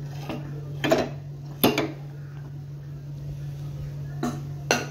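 Metal spoon clinking against a steel cooking vessel while stirring scrambled egg and capsicum fry: a few sharp clinks, two close together in the first two seconds and two more near the end, over a steady low hum.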